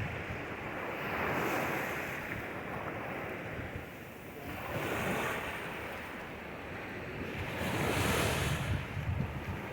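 Ocean waves washing in, swelling about three times, some three seconds apart, with wind rumbling on the microphone.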